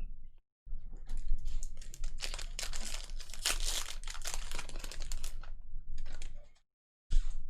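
Trading-card pack wrappers being torn open and crinkled by hand: a dense crackling rustle lasting about six seconds, with a short crinkle just before the end.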